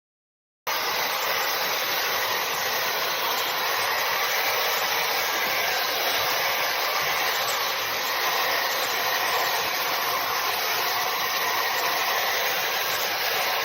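Wavytalk high-speed hair dryer running, a steady airy rush of blowing air that starts abruptly about a second in.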